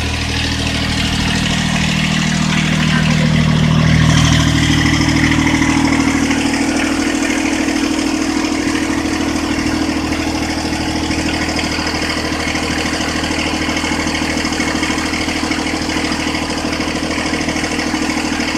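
Engine running steadily to drive a boom sprayer's high-pressure pump. Its pitch rises about four to six seconds in, then holds, under a steady hiss of spray from the nozzles.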